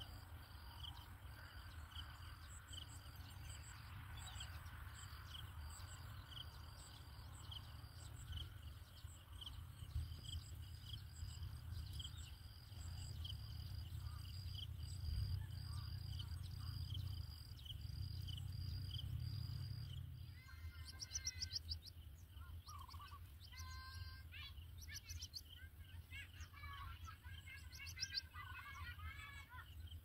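Outdoor bird and insect ambience: a high chirp repeats at an even pace, and from about two-thirds of the way in small birds give quick, warbling calls, over a faint low rumble.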